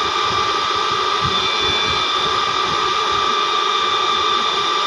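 Harrison M250 lathe running steadily under power, a constant high-pitched whine over an even mechanical noise.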